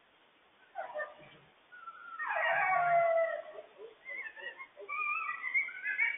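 Coyotes howling and yipping. A loud howl slides down in pitch about two seconds in, followed by a run of high, wavering yips and short howls. The uploader takes this for the pack's frantic warning call over a loose dog.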